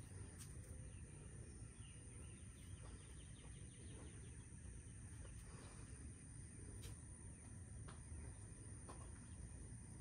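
Near silence: faint steady low hum of room tone, with a couple of faint ticks.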